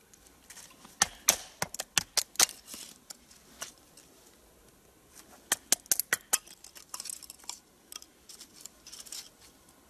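Puma knife chopping into wood to split small kindling sticks: sharp knocks and cracks, in three clusters of several quick strikes.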